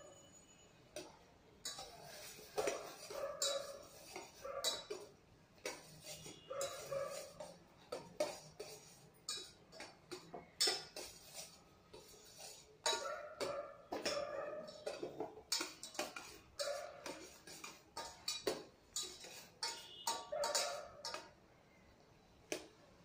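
A steel spoon stirring and clinking against a small steel saucepan of boiled carrot and apple pieces, in many quick knocks and scrapes. Short pitched whines come and go among them.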